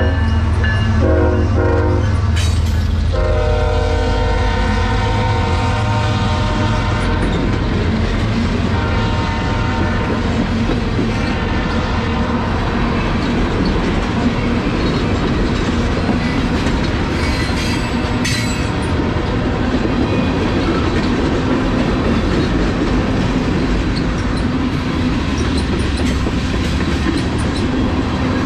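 Norfolk Southern diesel freight locomotive sounding its horn as the lead engines pass close by: a chord of several tones in a few blasts, the last held until about eight seconds in, over the low rumble of the engines. Then a string of tank cars rolls steadily past with the clickety-clack of wheels on the rail.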